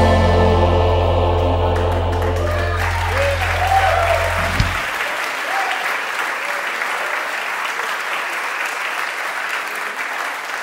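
A gospel song ends on a long held chord that cuts off about four and a half seconds in. Audience applause rises about three seconds in and carries on after the music stops.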